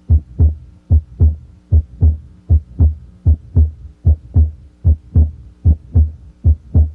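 Heart sounds heard through a stethoscope's diaphragm at the right second interspace (aortic area): a steady lub-dub of the first and second heart sounds. The rhythm is regular at about 75 beats a minute.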